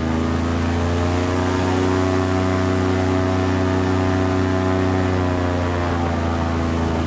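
Airboat's engine and pusher propeller running steadily, rising a little in pitch about a second and a half in and easing back near the end.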